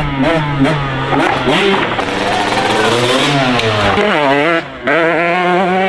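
Dirt bike engine revving on a motocross track, its pitch climbing and falling through the gears, with a quick drop in level a little before the end before it revs up again.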